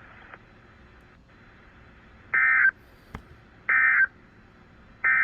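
Faint radio hiss, then about two seconds in three short, buzzy blasts of NOAA Weather Radio SAME digital data tones, evenly spaced about a second and a half apart. They are the end-of-message code that closes the weekly test broadcast.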